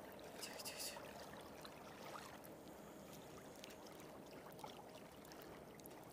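Faint lapping of small waves on a sandy shoreline, with a few soft clicks from handling the hook and the fish.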